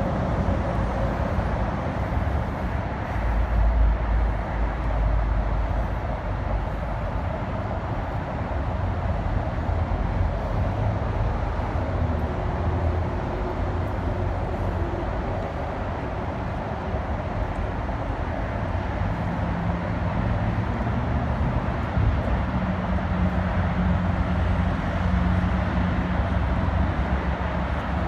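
Steady city traffic noise: a constant rumble of vehicles on the street, with a low steady hum coming in during the second half.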